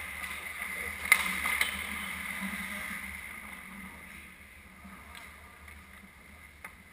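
Ice hockey play: skate blades scraping across the ice, with a sharp knock about a second in and a weaker one just after, the scraping fading toward the end.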